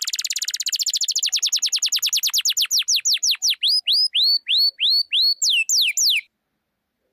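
A bird song: a rapid trill of short, high, falling whistles that steadily slows, the notes growing longer and turning into hooked, then sweeping falling slurs. It stops abruptly about six seconds in.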